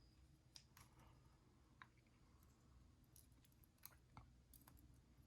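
Faint, scattered small clicks of metal parts and tools being handled while an ABUS 72/40 padlock is taken apart pin by pin.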